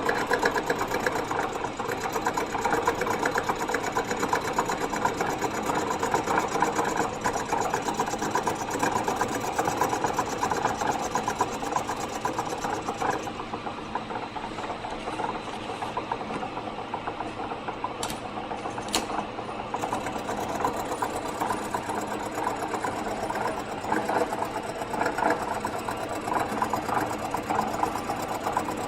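Bridgeport milling machine running in its high-speed position while a four-insert carbide face mill takes a light cut of just over 5 thou across a cylinder head's exhaust-port face, a steady rapid machining sound. Two sharp clicks come about two-thirds of the way through.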